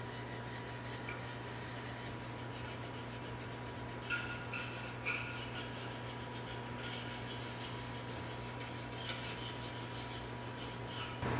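Quiet workshop room tone with a steady electrical hum and a few light clinks of metal engine parts being handled on a steel bench. A louder noise starts just at the end.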